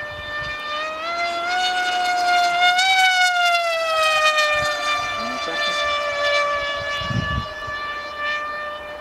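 Electric motors and propellers of a Twinjet RC model plane whining as it flies overhead. The pitch climbs over the first three seconds, then slides slowly down and holds steady.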